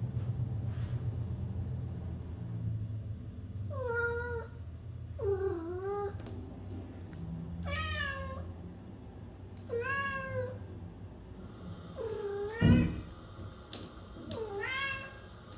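Domestic cat meowing, about six separate meows a second or two apart, each rising then falling in pitch. A dull thump late on is the loudest single sound.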